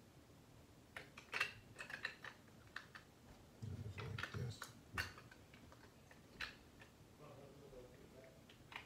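Scattered plastic clicks and light knocks from handling a clamp meter while fitting a 9-volt battery and its battery cover, with a duller thump about halfway through.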